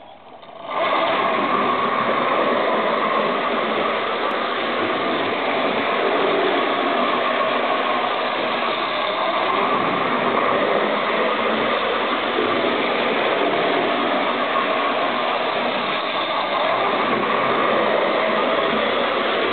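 A Hornby Dublo 3-rail model steam locomotive running on test, its electric motor and gears giving a steady whirring hum on the track. The hum starts up about a second in and holds an even level.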